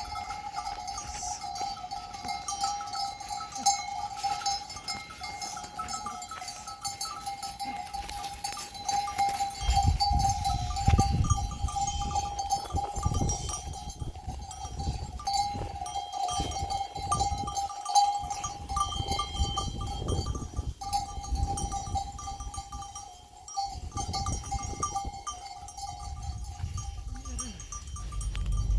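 Small livestock bells jingling on a flock of sheep or goats, over a steady high-pitched drone that stops shortly before the end. A low rumble comes and goes from about ten seconds in.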